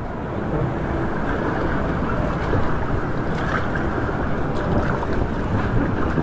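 Steady rushing noise of wind buffeting the action camera's microphone, mixed with water running down a water slide.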